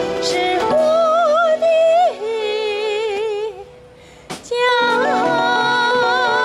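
Live band music: a woman sings held notes with vibrato over keyboard accompaniment. The music breaks off briefly about four seconds in, then starts again with a sharp hit and sustained notes.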